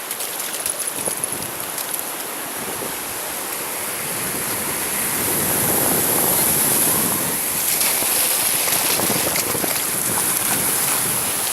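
Sea surf washing onto a beach: a steady rush of waves that swells about halfway through and eases off again.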